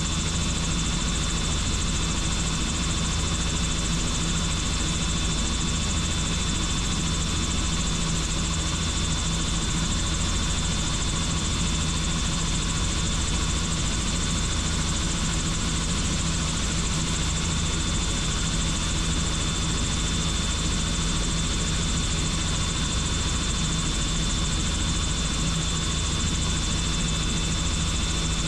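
Helicopter in flight: a steady, unbroken drone of rotor and turbine noise, with a low hum and a thin high whine held at one pitch throughout.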